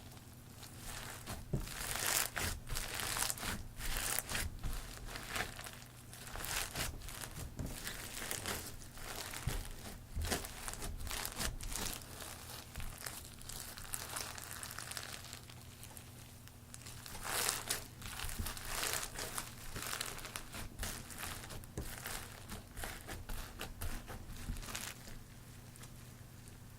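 Foam-bead crunchy slime being squeezed and pressed by hand, giving dense, irregular crackling and popping of the beads in the slime. It comes in louder spells and thins out near the end.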